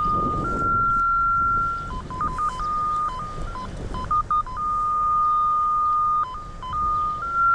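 Cable locator receiver sounding a steady electronic tone whose pitch jumps between a few levels, flicking up and down quickly around two and four seconds in, as the signal picked up from the buried coax cable changes.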